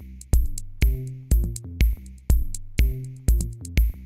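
Background music with a steady electronic drum beat, about two beats a second, with high ticks between the beats over a held bass line.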